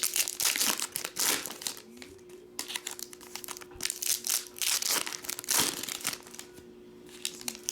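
Trading-card pack wrappers crinkling and rustling in hands, in several bursts of crackle with a short lull near the end.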